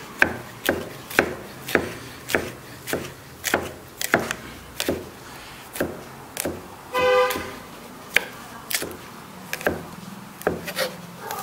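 Pestle pounding ginger and garlic in a mortar for a fresh paste: sharp, regular strikes about two a second. About seven seconds in there is one short car-horn toot.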